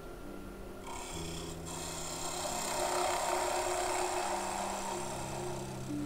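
Wood lathe running with a parting tool cutting the end of a small spalted maple blank held in a collet chuck, over a steady motor hum whose pitch shifts a few times. The cut has a lot of vibration in its sound, because the blank sits loose in the collet with no tailstock support.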